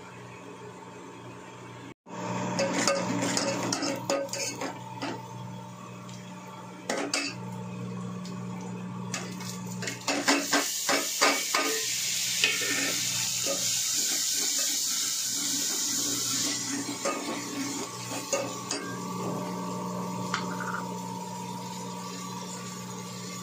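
A steel ladle scraping and clinking against a metal cooking pot as masala is stirred on a gas stove, with the frying masala sizzling, most strongly in the middle of the stretch. A steady hum runs underneath.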